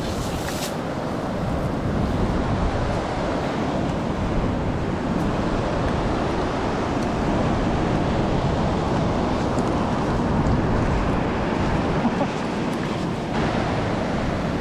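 Ocean surf breaking and washing up over a gravel and pebble beach: a steady rush of waves.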